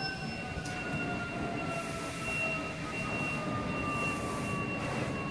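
A siren slowly winding down in pitch, its wail falling gradually throughout, with a steady high-pitched tone over it and a constant noisy din underneath. A short hiss comes about two seconds in.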